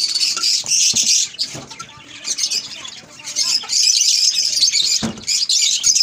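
Many small caged birds chirping and chattering at once, a dense nonstop twittering. A couple of light knocks from a clay pot being handled come through, one about a second in and one near the end.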